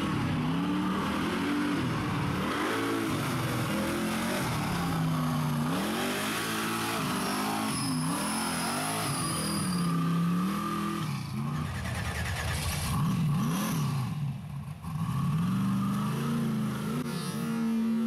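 Rock bouncer buggy's engine revving hard on a steep dirt hill climb, its pitch rising and falling over and over as the throttle is worked. It briefly drops off about three-quarters of the way through, then comes back up.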